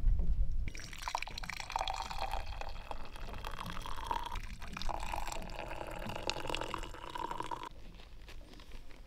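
Liquid poured from a stainless steel travel press into two small cups, one after the other, a steady splashing stream with a brief pause about halfway. A low rumble comes in the first moment, before the pouring starts.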